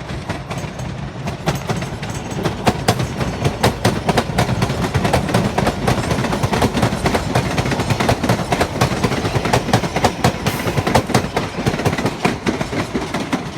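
MBTA Blue Line rapid-transit train picking up speed past the camera, its wheels clattering in a dense run of clicks over a steady rumble.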